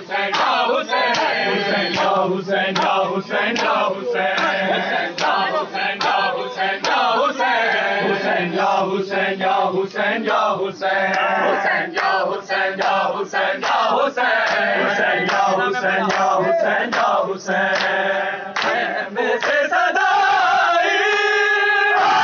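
A crowd of men chanting a noha, a Muharram lament, in unison, with repeated sharp slaps of hands beating on chests (matam) keeping time.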